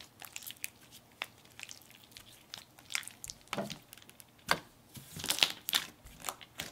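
Stretchy, jiggly Scentos slime being stretched, folded and pressed down by hand, giving irregular sticky clicks and small bubble pops, with the loudest clusters in the second half.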